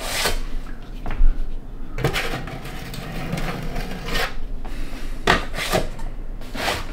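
Metal putty knife scraping and spreading wet floor leveling compound over a plywood subfloor, in a series of short, rasping strokes.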